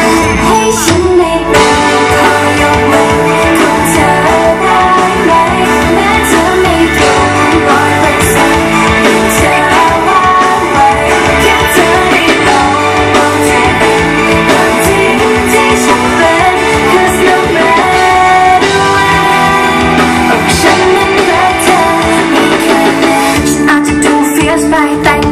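Pop song performed live over loud amplified sound: a singer's voice over guitar, drums and bass.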